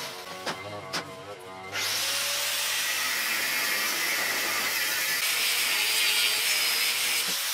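Angle grinder with a 1.2 mm NovoAbrasive cut-off disc cutting through a steel part: a loud, steady, hissing grind that starts about two seconds in. Before it there are a couple of short clicks as the grinder is brought to the work.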